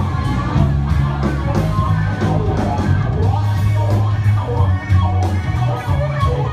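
Live rock band playing: electric guitar, bass, drums and saxophone, with a steady bass line and regularly spaced drum hits, picked up loud in a crowded room.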